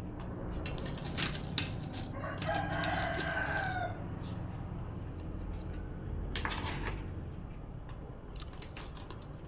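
A rooster crows once, a call of about a second and a half starting just over two seconds in. Around it are clinks and knocks of a metal pan and cooking utensil, over a steady low hum.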